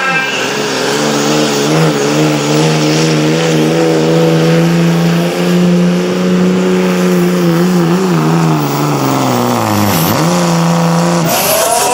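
Diesel engine of a Dodge Ram pickup at full throttle hauling a pulling sled, running at steady high revs with a slightly wavering note. About eight seconds in the revs fall away, then hold steady briefly before a sudden cut.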